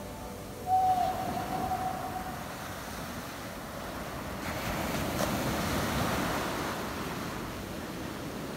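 Ocean surf breaking and washing up a sandy beach, swelling louder about halfway through, with wind on the microphone. A single held tone sounds for about a second and a half near the start.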